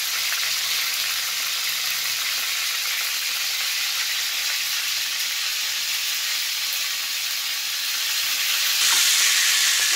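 Oil sizzling and bubbling in a frying pan with crushed kayyonni (false daisy) and tulsi leaves and their squeezed juice in it. It is a steady hiss that grows louder near the end.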